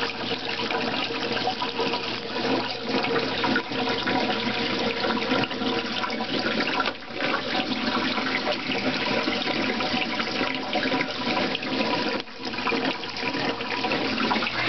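Water rushing steadily through an algae turf scrubber running at full flow, loud enough to drown out a voice, with a faint steady hum underneath.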